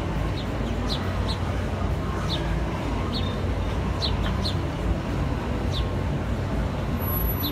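Small birds chirping: short, high, falling chirps repeated about once or twice a second, over a steady low rumble.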